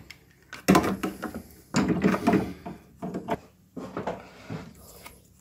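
Irregular clunks and rattles of handling: four or five separate knocks in quick bunches, quieter near the end.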